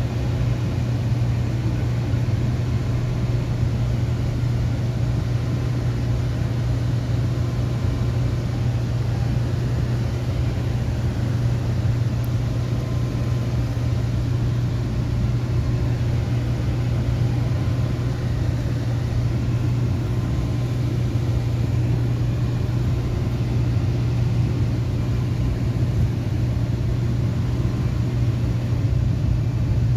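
Interior noise of a moving GO Transit bilevel passenger coach: a steady low hum over an even rumble that doesn't change.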